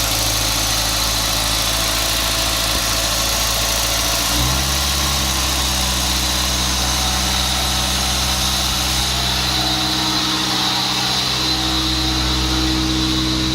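VW Gol G3's engine running at a steady idle that steps up in pitch about four seconds in and stays raised. The owner blames a faulty throttle body that is not setting the idle, leaving the engine revved up all the time.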